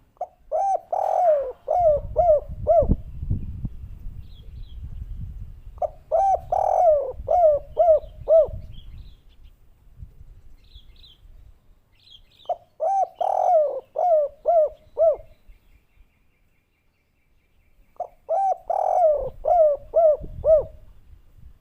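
Spotted dove cooing: four repeated phrases about six seconds apart, each a quick run of hooked, bubbling coos.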